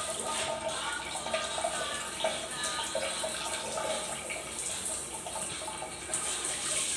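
Water running steadily from a tap or shower outlet fed by a water heater, a continuous splashing hiss.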